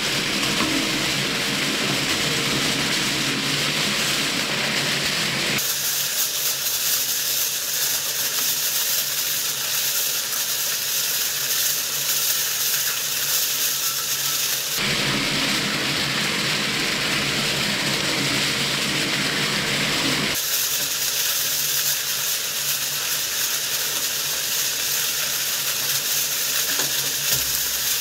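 Twin-shaft industrial shredder running, its cutter discs tearing and crinkling a sheet of aluminium kitchen foil, giving a steady hissing, rustling noise over the machine's hum. The sound shifts abruptly a few times.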